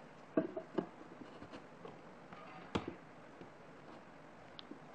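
A few light knocks and clicks of a wooden workpiece being handled and set onto a pantorouter's table: two knocks within the first second, a sharper click a little past halfway, and faint small handling noises between them.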